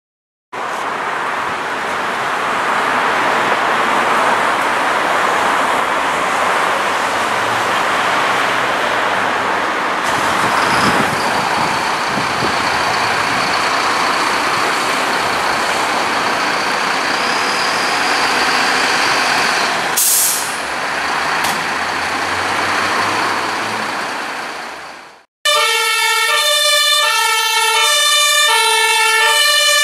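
Fire trucks' diesel engines running in the station bays as a steady noise, with a short hiss about two-thirds through. After a cut near the end, a fire-service van's two-tone siren sounds, switching evenly between two pitches.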